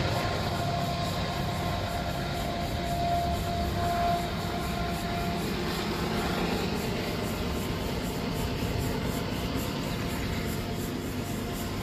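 Diesel locomotive approaching with a steady low engine rumble, plus a thin steady whine that stops about five seconds in.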